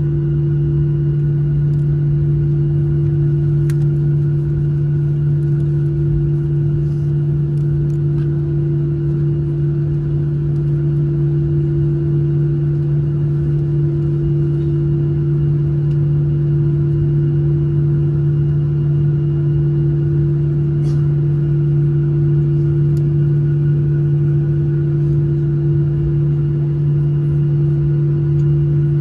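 Boeing 737-800 jet engines running at low taxi thrust, heard inside the cabin: a steady drone with a strong low hum and a second, higher hum above it.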